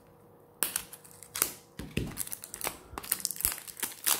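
Sealed mascara packaging being opened by hand: irregular crinkling and crackling of wrapping and cardboard, with sharp crackles, starting about half a second in.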